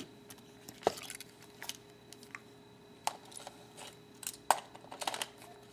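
A Tamron 35-70mm zoom lens being fitted onto a Ricoh KR-5 Super 35mm SLR body: scattered light clicks and small scrapes of metal and plastic as the lens is lined up with the mount and twisted home.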